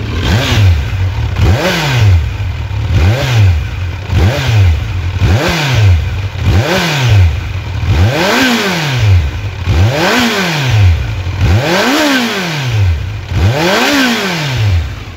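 Kawasaki Z900's 948 cc inline-four on its stock exhaust, blipped from idle about ten times, each rev rising and falling straight back, the later blips climbing higher. It is the characteristic four-cylinder sound.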